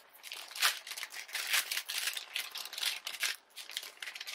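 Plastic poly mailer bag crinkling as hands pull its sealed top open: irregular crackles, loudest about half a second in.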